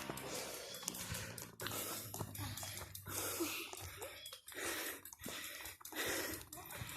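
A person breathing hard from exertion, with a series of rough breaths in and out, each about half a second long.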